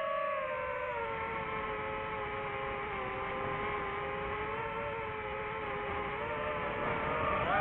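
Quadcopter drone motors and propellers whining steadily. Several close pitches drift slightly up and down together as the throttle changes.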